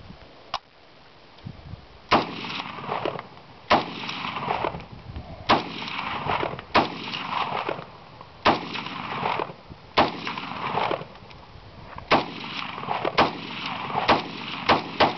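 Draco AK-47 pistol fired in single shots, about ten in all, one every one to two seconds, each followed by a rolling echo. The shots come closer together near the end.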